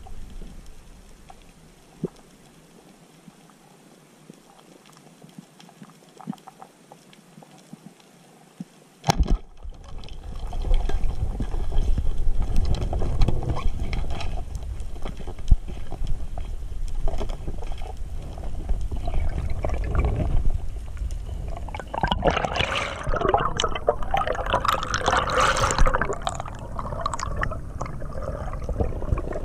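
Underwater camera sound: quiet at first with a few faint clicks, then one sharp crack about nine seconds in as the speargun fires. After the shot, loud rushing water as the diver swims and pulls on the line. Bubbling and hissing come in near the end as he rises toward the surface.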